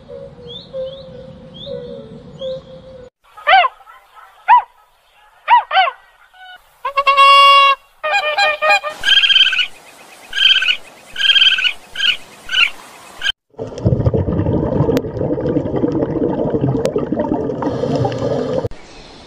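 A run of different animal calls, one after another. First come short chirps over a steady tone. Then come several separate rising-and-falling calls and a loud pitched call. A quick series of repeated calls follows, and the run ends in a noisy rushing stretch of about five seconds.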